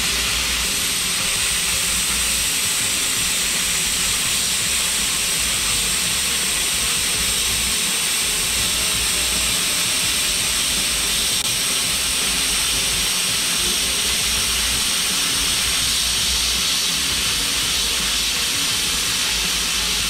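MIG (wire-feed) welding arc sizzling steadily as a bead is laid on a steel motor mount. The arc strikes right at the start and runs without a break.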